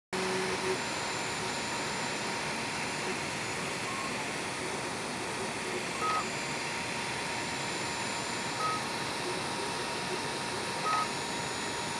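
Tevo 3D printer printing: a steady whirr of its cooling fans and motors, with short high-pitched beeping tones from the stepper motors every few seconds as the bed and print head move.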